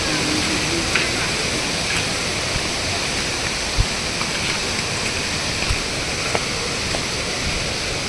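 Steady rushing water from a stream, with two soft low thumps near the middle.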